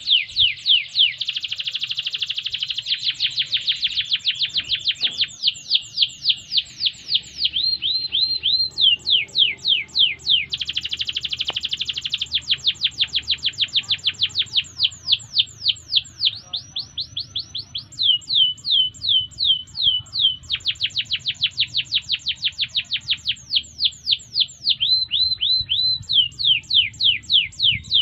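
Domestic canary singing a long unbroken song of high, rapidly repeated falling notes. It switches from one trill to the next every few seconds, some passages fast and dense, others slower with separate strokes.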